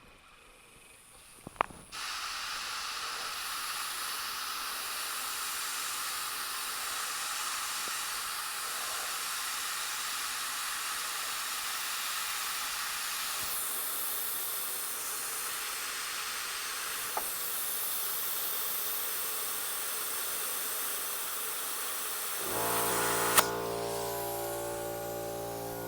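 Compressed air hissing steadily through a tire chuck into a low tractor tire being inflated, beginning with a short click about two seconds in. Near the end a buzzing hum joins the hiss.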